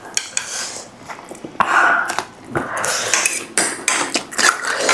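Eating utensils clinking and scraping against bowls and dishes in short, irregular clicks and clatters.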